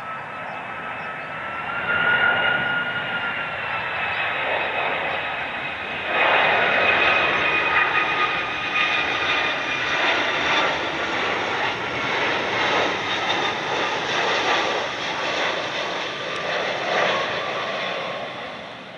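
Boeing 757 freighter's twin jet engines as it passes on approach with gear down: a rushing jet noise carrying a high, steady two-tone whine that rises slightly about two seconds in and then eases down. The noise grows louder about six seconds in and fades out near the end.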